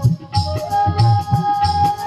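Flute holding one long steady note, entering about half a second in, over a percussion accompaniment with a steady beat of low drum strokes about twice a second.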